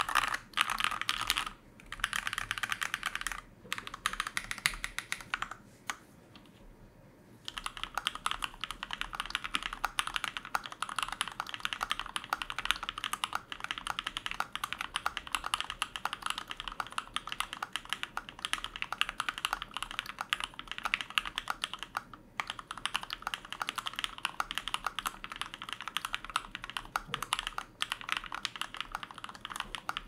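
Fast, continuous typing on a custom Arisu-layout (Elis) mechanical keyboard: Durock POM switches lubed with Krytox 205g0, mounted in an FR4 plate inside a stacked acrylic case, with PBT keycaps. A dense stream of keystrokes, broken by a pause of about a second and a half some six seconds in.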